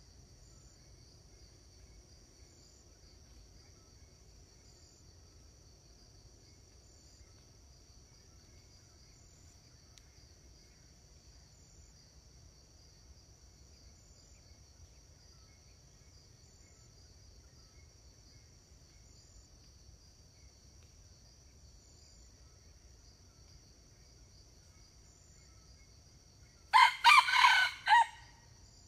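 A red junglefowl cock crows once near the end, a short broken crow of about a second and a half. Under it runs a faint, steady, high drone of insects.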